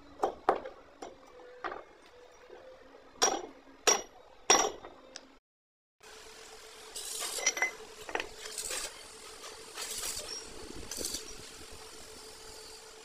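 Steel hammer blows driving a pin out of an excavator track roller, about seven sharp metallic strikes with a short ring over the first five seconds. After a break, a steady workshop din follows, with a few lighter metal clinks.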